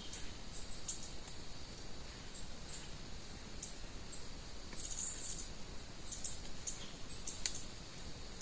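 Small birds giving short, high chirps at irregular intervals, with a denser run of chirps about five seconds in, over a faint steady high hiss.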